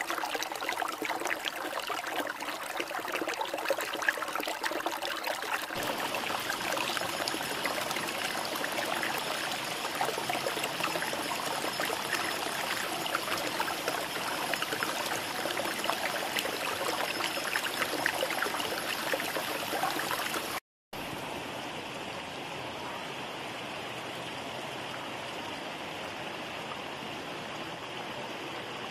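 Shallow, rocky river running over and between boulders, a steady rush of water. It cuts off abruptly for a moment about two-thirds of the way through, then resumes slightly quieter and duller.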